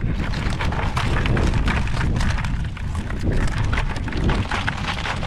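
Many quick clicks and rattles of blue crabs' shells and claws scraping against a wire-mesh crab trap as it is shaken out over a bucket, under a steady low rumble of wind on the microphone.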